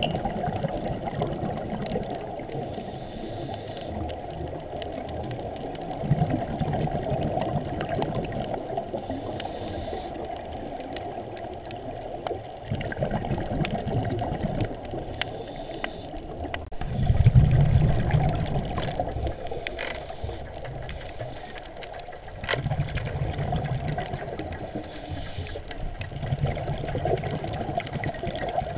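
Scuba diver's regulator breathing underwater: exhaled bubbles rumble in bursts every four to six seconds, with quieter stretches between. Under them runs a steady hiss, with scattered sharp clicks.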